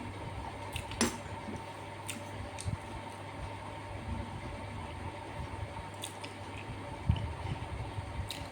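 Eating sounds: wet, squishy chewing and mixing of rice and curry, with a few small sharp clicks and one louder soft thump about seven seconds in. A steady low hum sits underneath.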